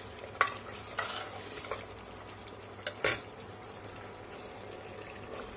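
Steel spatula stirring mutton and masala frying in oil in an aluminium pressure cooker, scraping and clinking against the pot over a soft sizzle. There are several sharp clinks, the loudest about three seconds in.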